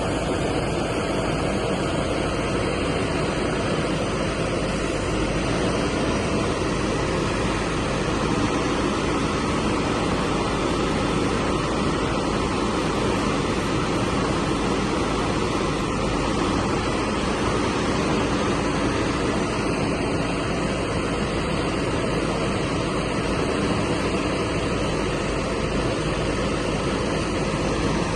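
Heavy diesel machinery running steadily, a continuous engine noise with no distinct knocks or pauses.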